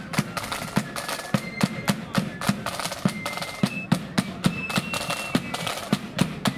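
Marching flute band playing. A high flute melody runs over sharp snare drum strikes and a steady bass drum beat.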